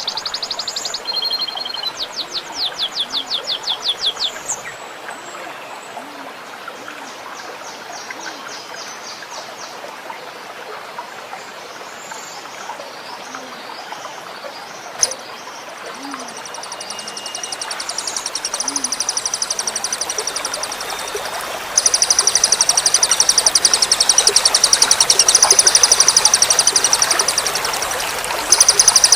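Songbird singing fast, high-pitched rattling trills. The trills are loud at first, quieter through the middle, and then run loud and unbroken for several seconds from about two-thirds in. Trickling water runs underneath as a steady background.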